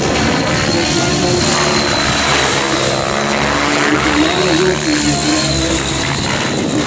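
Electric RC helicopter (Align T-Rex 700E DFC with an Align 800MX 520Kv motor) flying aerobatics: the rotor blades whir steadily with a high motor whine. The low tone wavers up and down as the rotor is loaded through manoeuvres.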